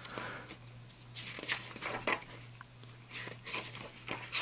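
Paper pages of a thin rulebook booklet being turned and handled: a series of short, irregular rustles and flicks.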